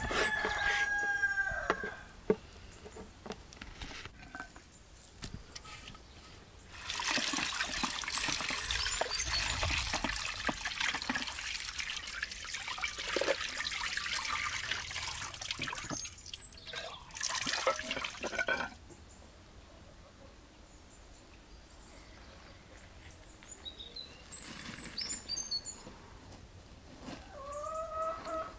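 Water from a tap running into a bowl of cubed beef as it is rinsed, a steady splashing for about eleven seconds in the middle, stopping suddenly. Chickens call briefly at the start and again near the end.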